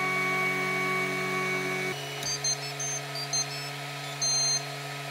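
MakerBot 3D printer running with a steady hum that changes about two seconds in, then its buzzer beeps a short high-pitched tune of several notes, the printer's signal that the build has finished.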